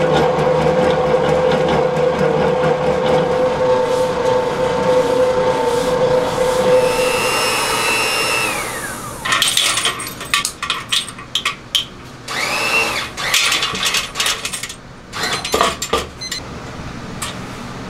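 Commercial dough mixer's motor running steadily, its dough hook churning batter in a steel bowl, then shutting off with a falling whine about eight seconds in. After that come irregular metallic clanks and rattles as the steel bowl and its hoist chain are handled, with one more brief whine partway through.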